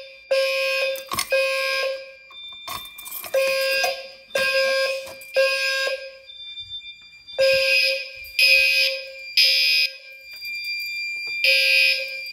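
Gentex fire alarm horns sounding in alarm after a manual pull station is pulled. Each harsh buzzing blast lasts under a second, and the blasts come in repeating groups of three with a short pause between groups, the temporal-3 evacuation pattern. A thin high beep fills the pauses.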